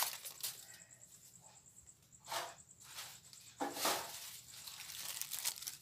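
Aluminium foil being handled on a kitchen counter: two faint, brief rustles, over quiet room tone with a faint steady high whine.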